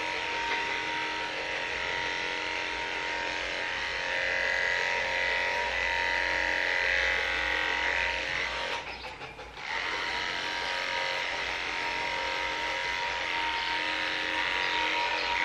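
Cordless electric dog clippers running with a steady motor whine as they cut through a dog's coat. The sound drops away briefly about nine seconds in.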